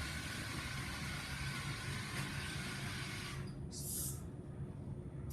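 Small robot car's electric drive motors whirring with a hissy buzz as it drives itself, stopping about three and a half seconds in, then a short half-second whir as it moves again.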